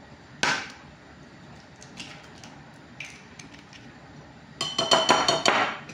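Kitchen clatter: a sharp knock about half a second in and a few light taps, then a metal wire whisk rapidly clinking and rattling against a glass bowl for about a second near the end.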